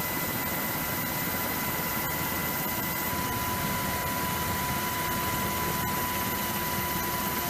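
Jet engines running on an aircraft carrier's flight deck: a steady rushing noise with a thin, steady high whine.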